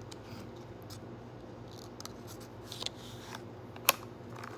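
Light clicks and taps of trading cards and their packaging being handled, with one sharp click about four seconds in, over a low steady background hum.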